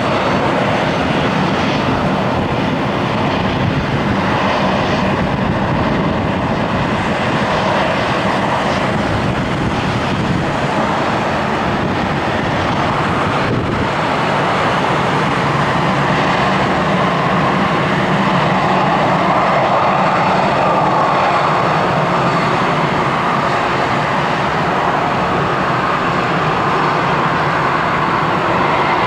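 An Airbus A320's twin jet engines running at taxi power as the airliner taxis. It is a steady jet whine and rush that grows a little louder in the second half.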